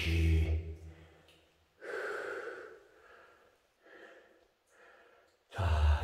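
A man's breathing: one long, breathy exhale starting about two seconds in, then two faint short breaths. His speech starts again near the end.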